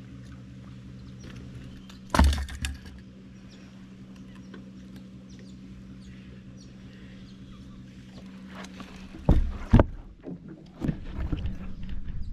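Small boat motor running steadily with a low hum. A loud knock comes about two seconds in and two more close together near the end, with smaller clicks between.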